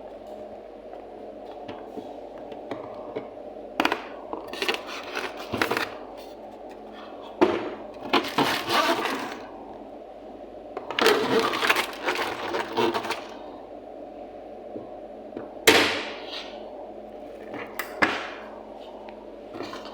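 Hard objects clattering and knocking in several separate bursts, the sharpest about four seconds in and again near sixteen seconds, over a steady background hum.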